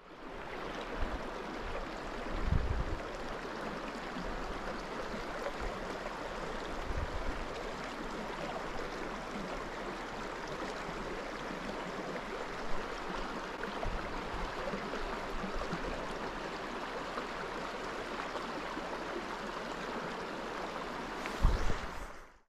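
Shallow creek water rushing and babbling steadily over rocks. A few short low thumps come through, the loudest near the end.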